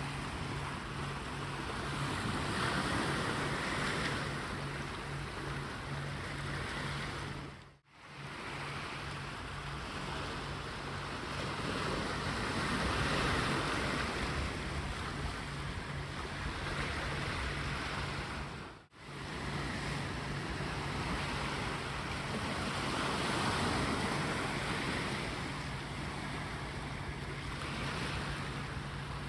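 Sea waves washing onto the beach, the surf swelling and easing every several seconds. The sound cuts out abruptly twice, for a moment each time.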